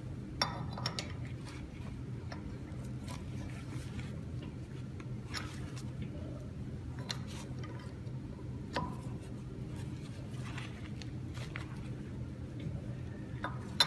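Scattered light clicks and taps of steel parts being handled on a lathe's spindle fitting while a collet closer is installed, with a steel bar fitted into one of the fitting's holes, over a steady low hum.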